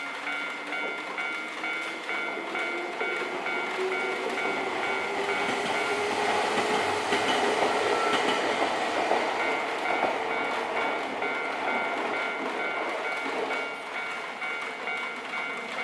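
Japanese level-crossing warning bell ringing in a rapid repeating electronic ding while an electric train passes over the crossing. The train's rumble and wheel clatter grow loudest about six to ten seconds in, with a hum rising in pitch as it approaches.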